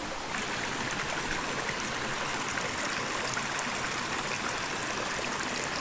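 A small, rocky mountain stream running over stones, giving a steady, even rush of water.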